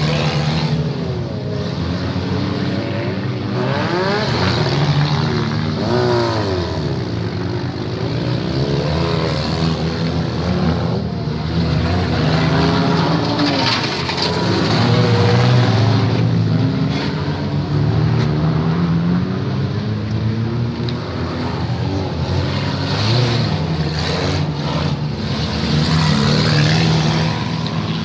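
Engines of several demolition derby cars running and revving together, their pitch rising and falling over and over without a break.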